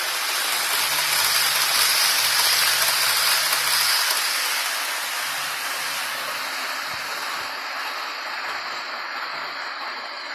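Model train running along the track of a layout: a steady rushing rumble of wheels and motor that swells about two to four seconds in, then slowly fades as the train moves away.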